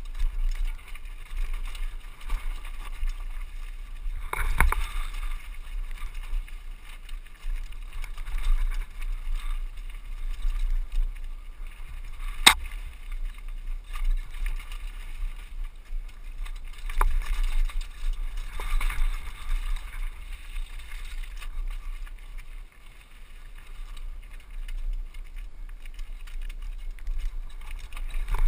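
Downhill mountain bike descending a rocky dirt trail: tyres rolling and crunching over dirt and loose rock, with a steady low rumble and several sharp knocks from the bike over rough ground, the sharpest about twelve seconds in.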